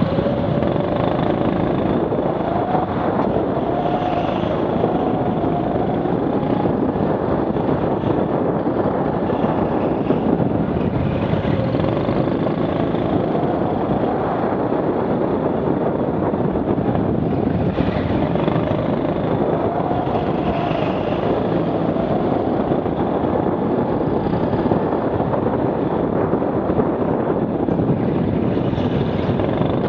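Rental go-kart's motor running flat out around a circuit, its pitch rising and falling over and over as it slows for corners and speeds up again, over a steady rushing noise.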